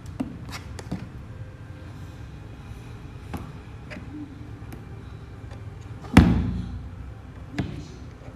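Handling noise: scattered light clicks and taps, with one loud thump about six seconds in that rings briefly, over a steady low background hum.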